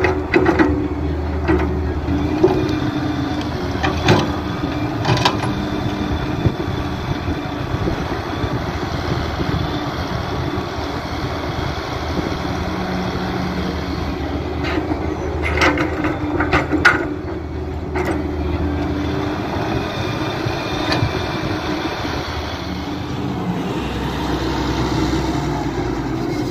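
Diesel engines of an excavator and a Massey Ferguson tractor running steadily while the excavator loads soil into the tractor's trolley. Sharp clanks of the bucket and dumped soil come now and then, a cluster of them about sixteen seconds in.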